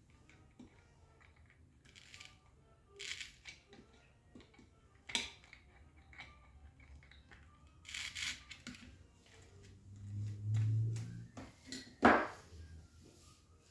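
Intermittent rustling and clicking of craft materials being handled, a few separate short noises with the sharpest click near the end.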